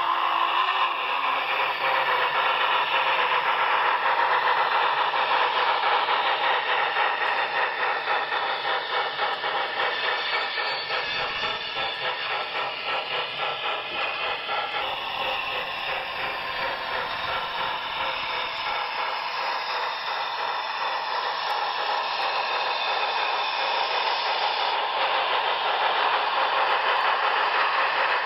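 HO scale model steam locomotive and passenger train running on the layout's track, its onboard sound playing steam running sounds through a small speaker with a fast, even rhythm.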